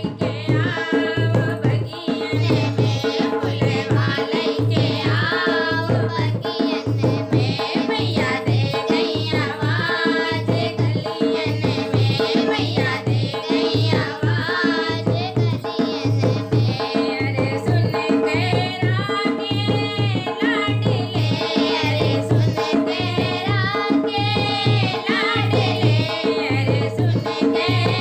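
Hindi devotional bhajan to the mother goddess: a voice singing over a steady hand-drum beat of about one stroke a second, with held accompanying tones.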